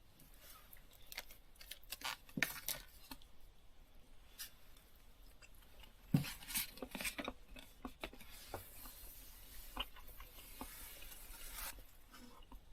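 Light handling noises: scattered clicks, taps and small clinks of objects being moved. A steady hiss starts about eight seconds in and stops a second before the end.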